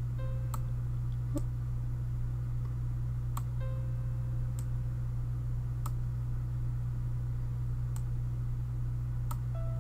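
Computer mouse clicking about seven times over a steady low electrical hum. Twice a faint, short piano-like note sounds, the editor's playback of a note as it is placed on the staff, and a higher one begins near the end.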